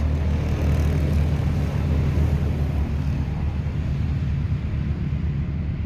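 Off-road vehicle engine running steadily, a low even drone that eases off slightly toward the end.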